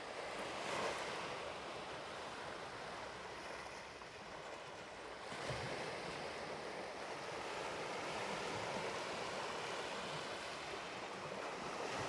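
Sea waves washing onto a beach: a steady rush that swells a little about a second in and again about halfway through.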